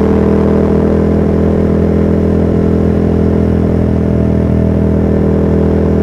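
Yamaha MT-07's parallel-twin engine running at a steady, unchanging pitch while the bike cruises along, picked up by a DJI Mic carried in the rider's backpack.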